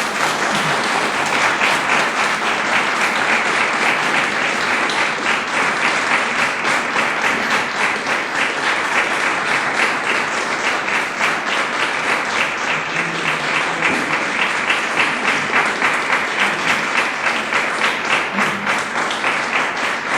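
Audience applauding, sustained and even.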